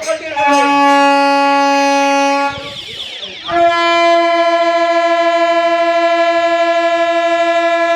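Train horn sounding two long blasts: a lower note held about two seconds, a brief falling slide, then a higher note held about five seconds with a slight pulsing waver.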